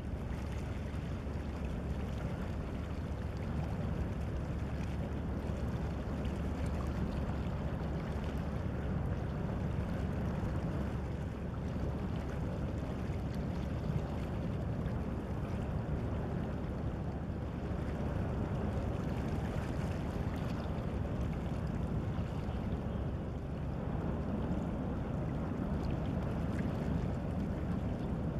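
Passenger motor vessel passing at speed: a steady low rumble with the rush of water from its bow wave.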